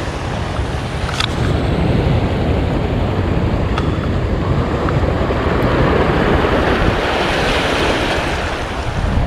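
Sea waves washing against a breakwater, with wind buffeting the microphone; a wave surges up louder about seven seconds in, then eases off.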